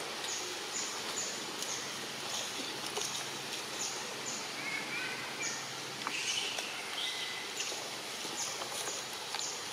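Outdoor woodland ambience: a steady hiss with short, high chirps repeating about twice a second. A few brief higher calls come in around the middle.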